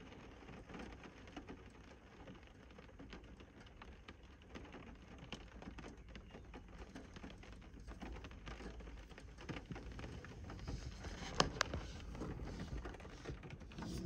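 Rain pattering steadily as a dense, irregular mass of small drop taps, growing a little louder in the second half, with one sharper tap about eleven seconds in.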